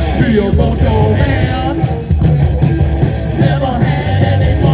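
Live rock band playing loud through amplifiers: electric guitar and a drum kit, with vocals.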